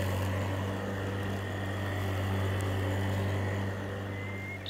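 Lawnmower motor running at a steady pitch, a continuous low hum with a faint high whine over it.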